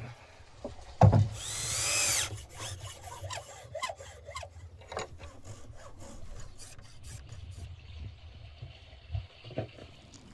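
Hacksaw cutting through a raw marrow bone clamped in a bench vise, in a run of short rasping strokes. Two sharp knocks come near the start.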